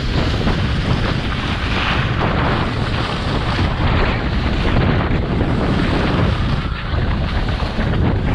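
Wind buffeting the microphone of a camera carried by a downhill skier: a steady loud rush with a deep rumble, mixed with the hiss of skis sliding over snow.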